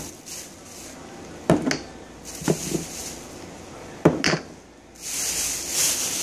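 Small cork-lidded glass candle jars being handled and set down on a table: three pairs of sharp knocks about a second apart, followed by a soft rustle near the end.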